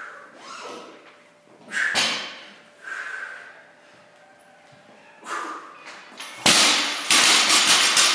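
Heavy breathing under load, then a loaded barbell with bumper plates dropped onto a rubber gym floor about six and a half seconds in: a heavy thud followed by over a second of rattling and clanking as the plates and bar settle.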